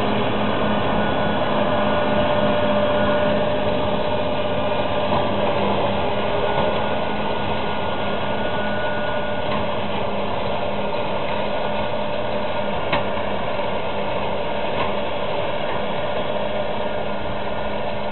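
Fendt 924 Vario tractor's six-cylinder diesel running under steady load, powering a trailed Kemper Champion forage harvester that is chopping maize and blowing it into a trailer: a steady mechanical drone. There is a single sharp click about thirteen seconds in.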